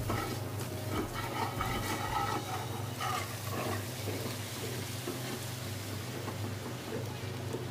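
Wooden spatula stirring and scraping a sautéed meat, garlic and shallot mixture in a nonstick wok, with a light sizzle of frying. About halfway through, soaked rice is tipped in from a steel bowl and stirred in, and the scraping settles to a steadier, softer sound.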